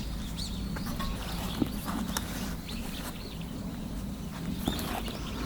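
Small birds calling in short, repeated chirps over a steady low outdoor rumble, with a few sharp clicks.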